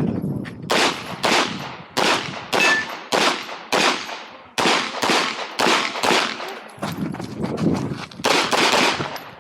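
A string of rapid 9 mm pistol shots, about one every half second, each a sharp crack with a ringing tail: a competitor firing a practical-shooting course of fire.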